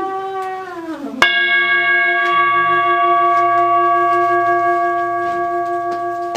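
A wavering, gliding tone falls away, then a bell is struck once about a second in and rings on steadily, slowly fading.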